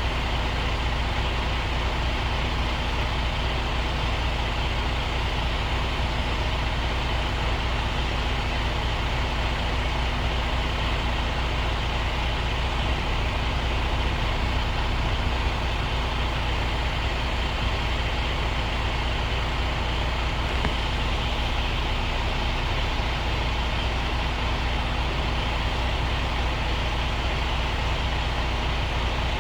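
A truck's diesel engine running steadily, a deep, even rumble with a steady hum above it that doesn't change in pitch.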